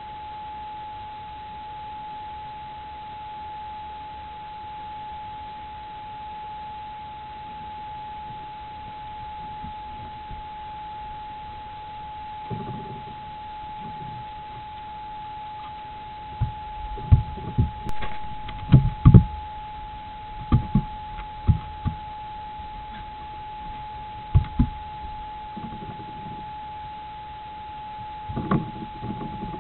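A young stone marten moving about inside a box and its plastic tube, making scattered knocks and bumps from about halfway, with a close rustling scrape near the end as its fur brushes against the camera. A steady electronic tone and hiss from the camera run underneath.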